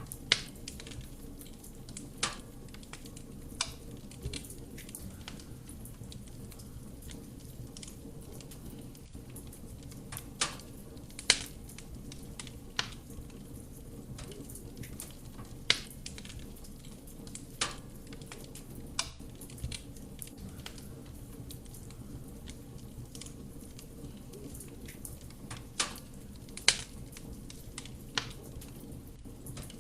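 Wood fire burning in a fireplace: a steady low rumble of flame with sharp, irregular crackles and pops of burning wood, roughly a dozen strong ones spread unevenly.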